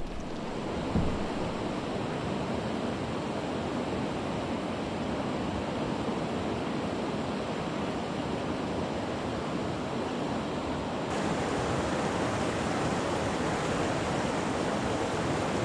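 Steady rushing of nearby river rapids and choppy lake water, mixed with wind on the microphone. There is a brief knock about a second in, and the hiss grows brighter about eleven seconds in.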